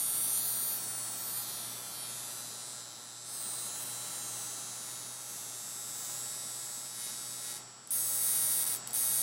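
Steady low electrical hum with a faint buzz. Short bursts of high hiss come near the start and again about eight seconds in.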